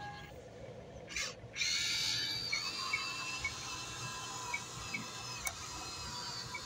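Small electric motors of a Huina RC excavator whining steadily as the machine works, with a short break about a second in.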